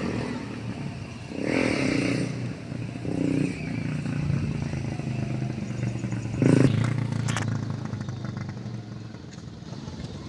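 Motor vehicle engines running and passing by, swelling louder a few times.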